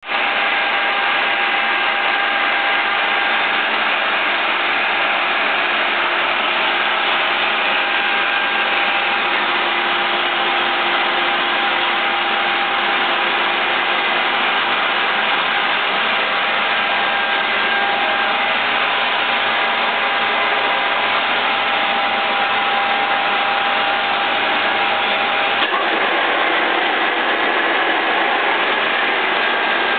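Soviet 2L614 horizontal boring machine running steadily, its drive giving a continuous whine over mechanical hum. The spindle is not cutting while the steel workpiece is reset in the vise. Near the end there is a faint click, and the whine shifts a little.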